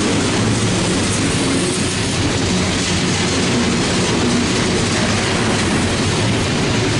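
Loaded coke hopper cars of a freight train rolling past close by: a steady noise of steel wheels on the rails with rapid, irregular clicking and clanking from the wheels and cars.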